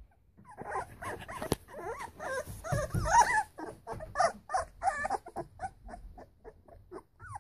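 A litter of three-week-old puppies whimpering and yipping: a string of short, squeaky calls that bend up and down in pitch, crowded together in the first half, then coming two or three a second.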